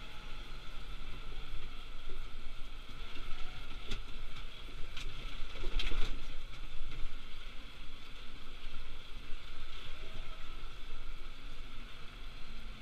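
Tractor running steadily as it drives along a dirt track, heard from inside the cab as a constant drone and hum, with a few short knocks or rattles near the middle.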